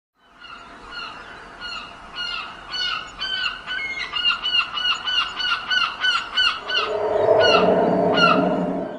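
A bird calling over and over in short honking notes that quicken and grow louder. About seven seconds in, a low steady droning swell comes in under the calls.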